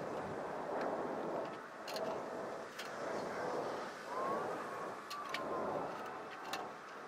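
Scattered light metallic clicks and taps of hidden hangers being fitted into an aluminium gutter by hand, over a steady background rumble that swells and fades.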